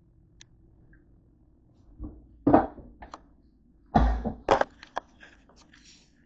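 A series of knocks and thumps from handling, with light clicks between them; the loudest come about two and a half and four seconds in.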